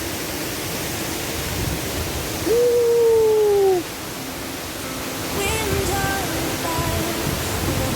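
Steady rushing of a waterfall. About two and a half seconds in, one loud, long call slides slightly down in pitch for just over a second, and a run of short pitched notes follows near the end.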